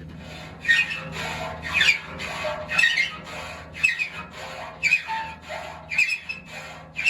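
Hand file rasping across the face of a sawmill saw tooth in even strokes, about two a second, each stroke with a high metallic ring. The teeth are being sharpened by hand, with a little lead filed into worn, shortened teeth.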